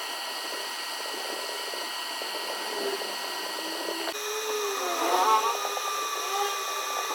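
Hot air rework gun blowing steadily as it heats the board to free the A15 chip. About four seconds in, the sound changes abruptly and faint wavering tones appear over the airflow.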